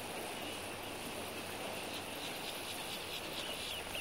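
Outdoor summer ambience of insects chirping steadily in long grass, with a few faint short chirps over it.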